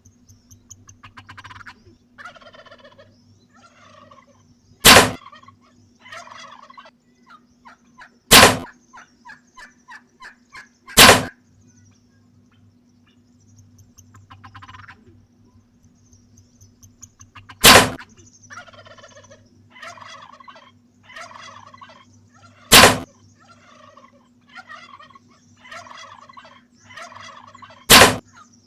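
Wild turkeys gobbling again and again, rattling calls following one another, with a quieter stretch in the middle. Six loud sharp cracks cut in at intervals, each much louder than the gobbling.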